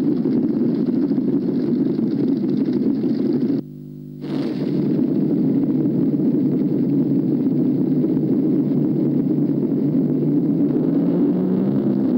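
Vehicle engines running, heard as a loud, steady rumble on an old film soundtrack. The sound drops out briefly about three and a half seconds in, leaving a low hum, then comes back.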